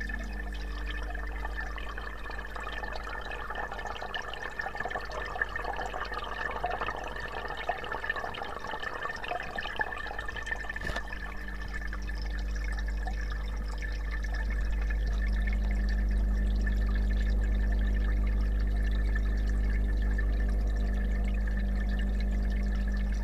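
Muffled water sound heard through a submerged camera's waterproof housing in an aquarium: a continuous swishing, crackling wash over a steady low hum and a thin high whine. It grows a little louder about two-thirds of the way through.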